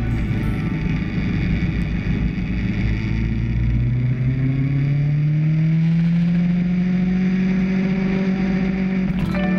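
Kawasaki Z1000's inline-four engine running while riding, its note climbing steadily for a few seconds and then holding, with wind rumble on the microphone in the first half.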